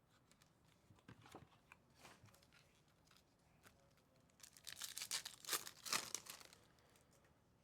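Foil trading-card pack being torn open and its wrapper crinkled, soft handling rustles at first, then a louder stretch of tearing and crinkling a little past the middle.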